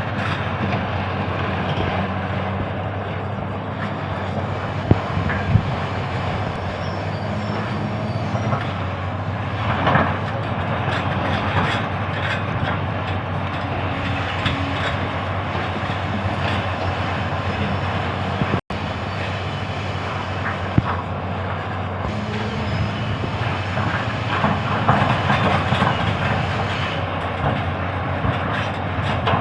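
Excavator's diesel engine running steadily under load, with repeated metallic clanks and knocks from the machine working.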